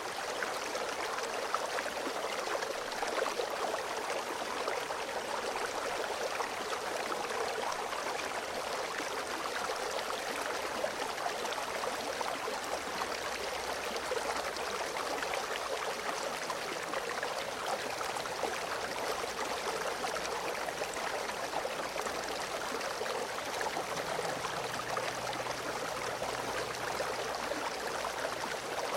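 A shallow creek flowing steadily, water bubbling and gurgling over stones, with a dense splashing texture and no pauses.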